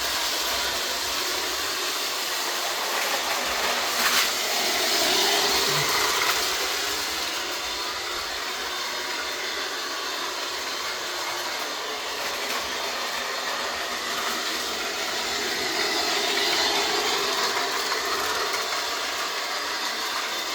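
Bachmann G-scale model train running on its track, a steady rolling, mechanical noise that swells twice as it goes by, with a sharp click about four seconds in.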